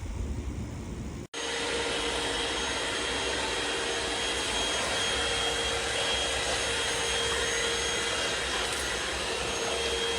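Sanitaire SL3681A compact canister vacuum cleaner running steadily, a continuous rushing noise with a steady hum and a faint high whine. About a second in there is a brief cut, after which the motor sound carries on unchanged.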